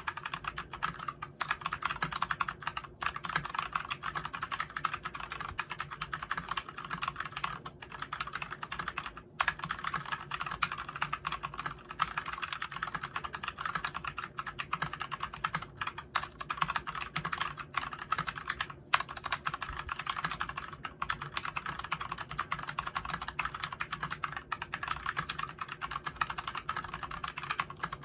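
Fast, continuous typing on a tenkeyless mechanical keyboard with Gateron Brown tactile switches: a dense run of key clacks with only a few brief pauses.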